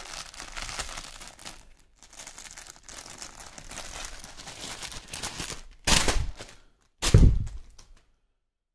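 Thin plastic packaging crinkling as a bag of socks is opened and handled. Two louder crackling rustles come about six and seven seconds in, the second with a dull thud.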